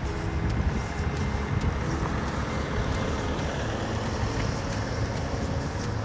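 A motor vehicle driving past close by, a steady engine rumble and tyre noise that covers the faint background music.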